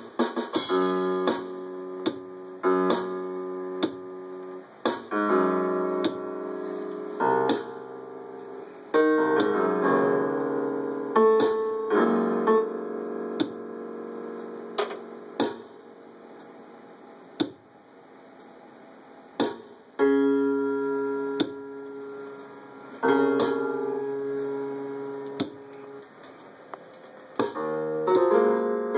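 Electronic keyboard sounding clusters of notes, pressed at irregular moments by a cat lying across its keys. Each cluster starts suddenly and dies away, with a quieter lull about two-thirds of the way through.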